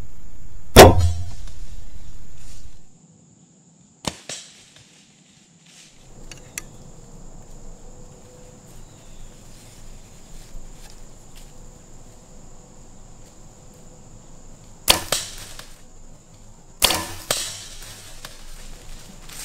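Mathews V3 compound bow firing: one sharp, loud snap of the string releasing the arrow about a second in. Two more sharp snaps follow near the end.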